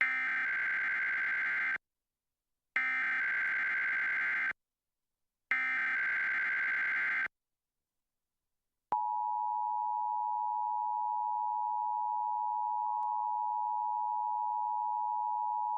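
Emergency Alert System SAME header: three identical bursts of buzzy digital data tones, each about two seconds long and a second apart. About nine seconds in, the steady two-tone EAS attention signal (853 and 960 Hz) begins and holds.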